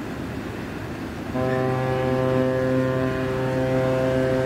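A ship's horn sounds one steady, deep blast of about three seconds, starting a little over a second in, over a low steady rumble.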